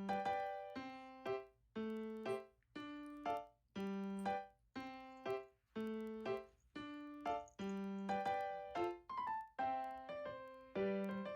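Background music: a light piano melody of repeated plucky notes in a steady rhythm.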